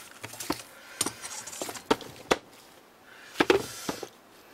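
Several sharp clicks and taps of a knitting machine's metal needle retainer bar and small hand tools being handled, with a short rustle late on.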